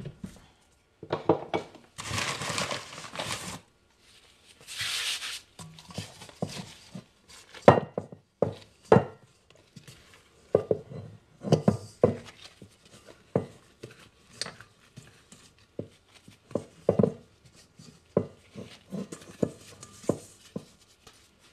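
Hands working a soft, sticky pizza dough on a floured wooden board: rubbing and scraping noises in the first few seconds, then dull slaps and knocks of dough and hands against the wood, about one a second.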